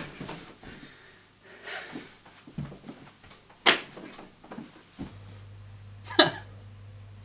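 A man catching his breath after a frantic run: a few short, scattered breathy huffs and exhales, with quiet in between. A low steady hum comes in about five seconds in.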